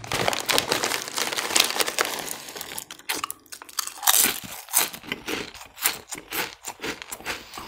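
A foil potato-chip bag crinkling as a hand rummages in it, then Lay's potato chips crunching as they are chewed, a quick series of sharp crunches from about three seconds in.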